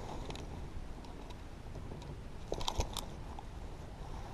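Faint handling noise over a low steady hiss: a few small clicks and crackles, bunched together a little past the middle, as a bass hanging from a hand-held fish scale is held still for weighing.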